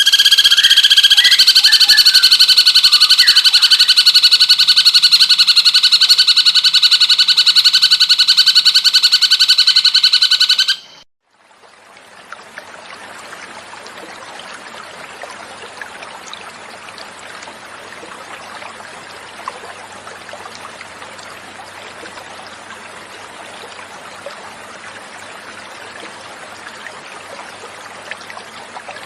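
Cucak cungkok bird singing a loud, very rapid trill held at a steady pitch for about eleven seconds, cutting off abruptly. After a brief gap comes a quieter, steady sound of flowing water.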